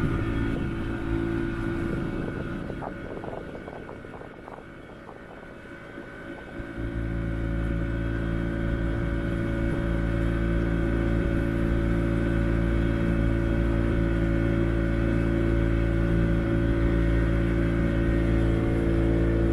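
Outboard motor of a small fishing boat running steadily at trolling speed, with a steady low engine note; it fades away for a few seconds about a second in, then comes back abruptly and holds steady.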